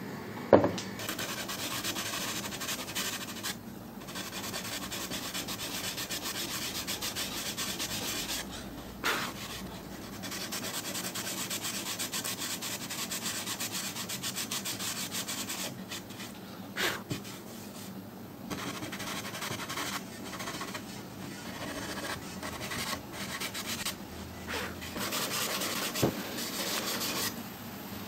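Charred shou sugi ban wood being rubbed down by hand with rapid back-and-forth strokes, in long spells broken by short pauses. A sharp knock comes about half a second in, with a few lighter knocks later.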